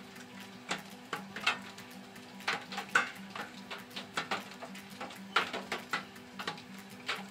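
Rain dripping: irregular single drops tapping sharply on a hard surface, several a second and uneven in loudness, over a faint hiss. Soft background music of held low notes plays underneath.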